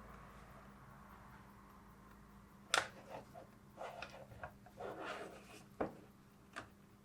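Plastic headset parts being handled and fitted together: small clicks and rustles, with a sharp click a little under three seconds in and another near six seconds, over a faint steady hum.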